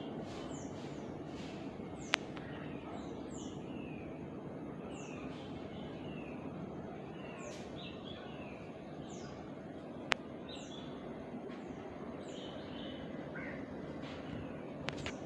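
Small birds calling: short, high chirps that slide downward, repeating about once a second, over a steady outdoor background noise. Two sharp clicks stand out, about two seconds in and again about ten seconds in.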